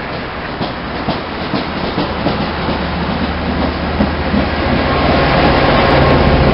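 Train passing close by: wheels clicking over rail joints under a steady low drone that grows louder toward the end.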